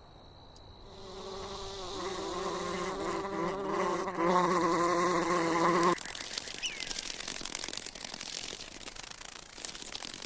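A flying insect's wing buzz, a steady pitched drone that wavers slightly, swelling in over the first seconds and then cut off abruptly. After that comes an even hiss.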